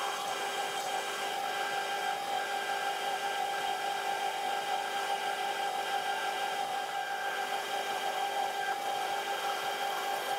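Metal lathe running steadily while a twist drill in the tailstock bores an 11 mm hole through a workpiece spinning in the chuck: a steady hum of several tones from the machine's drive, with the noise of the cut.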